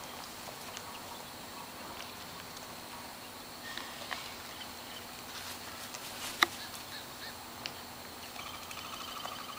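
Wild cockatoos scuffing and tapping at shoes with scattered light clicks, one sharp tap about six and a half seconds in. A short, soft rasping call comes near the end, over a steady faint hum.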